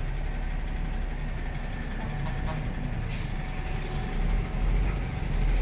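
Steady low rumble of street traffic, growing a little louder near the end.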